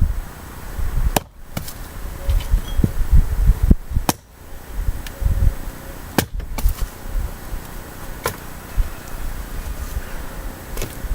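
About six sharp knocks at uneven intervals, from firewood being worked by hand, over a low, uneven rumble.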